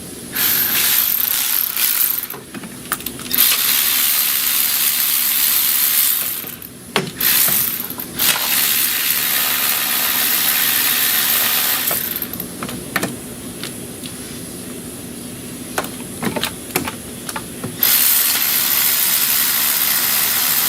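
Several long bursts of compressed air hissing from a shop air tool, each lasting a few seconds. Short metallic clinks of small parts and tools come in the quieter gaps between them.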